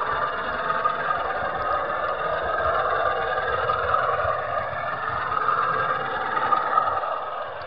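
Model railway train running along the track, heard from a wagon in the train: a steady whine that wavers in pitch, with rattling wheel-and-rail clatter underneath. It gets a little quieter near the end.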